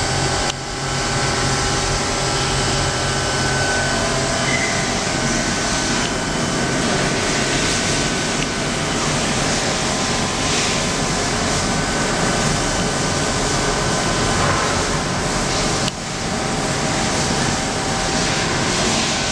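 Kiwa Triple V21i-R vertical machining center's spindle running steadily at about 8,000 rpm. It makes an even machine whir with a few faint steady high tones. The level dips briefly twice, near the start and about 16 seconds in.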